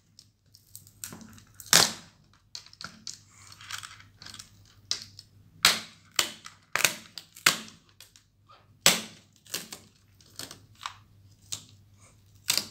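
Plastic snap-clips of a Dell Latitude 5450 laptop's screen bezel popping loose one after another as the bezel is pulled off the display lid. It makes a long run of sharp, irregular clicks and cracks, with scraping of plastic between them.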